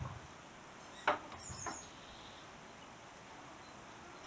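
Two short knocks about half a second apart, a little over a second in, with a brief high chirp between them, against quiet room tone.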